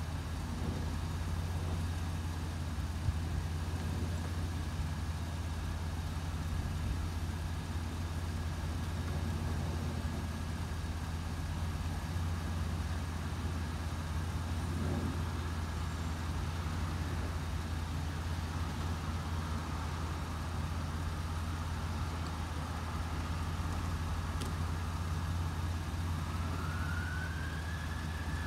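Steady low rumble of road traffic. Near the end, an emergency-vehicle siren rises and then falls in pitch.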